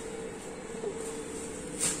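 Quiet room tone with a faint steady hum, and a short rustle-like burst of noise near the end.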